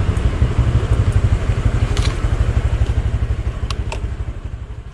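Honda Click 125i scooter's single-cylinder engine idling with a steady, rapid low putter that fades out near the end, with a few light clicks.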